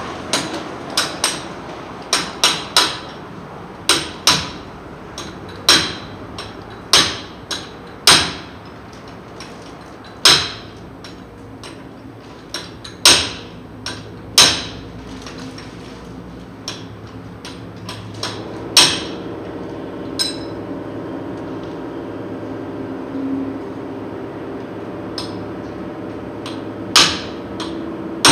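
Hand hammer striking metal at a truck's wheel hub and brake assembly. About twenty sharp, ringing blows land irregularly, often in quick pairs or threes. They come thickly at first and thin out past the middle.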